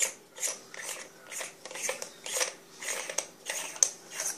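Threaded metal flashlight tube being unscrewed by hand: the threads scrape in short gritty strokes, about two a second, with one sharp click near the end.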